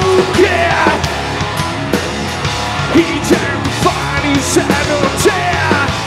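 A rock band playing live, with electric guitar, bass and drums, and a singer's voice over it.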